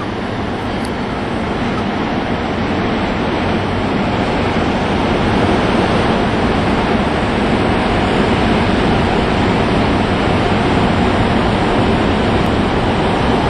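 Steady, even rushing noise with no distinct events, slowly growing louder over the first few seconds and then holding level.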